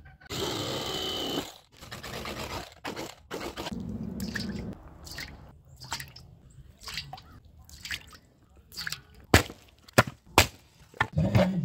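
An electric fillet knife runs briefly as it cuts through a bass. Then water splashes and drips as the fillets are rinsed in a steel bowl. Near the end come three sharp axe strikes splitting a log.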